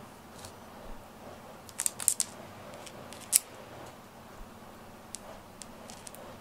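A cat chewing on a cord toy: sharp, crisp clicks of its teeth on the cord. There is a quick cluster about two seconds in and the loudest single click at about three and a half seconds, then a few lighter clicks.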